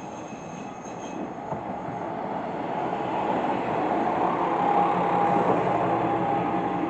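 A train rumbling past, growing louder to a peak about two-thirds of the way through, with a steady wheel squeal over the rumble.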